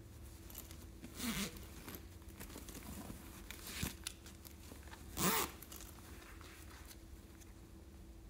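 Zipper on a plush fabric backpack being pulled in three short rasps, the last one the loudest.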